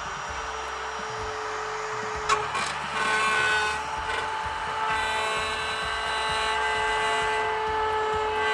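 Handheld drywall cutout tool running at high speed with a steady whine as its spiral bit cuts an opening in a body panel. There is a sharp click about two seconds in, and the whine changes pitch as the bit bites in a moment later.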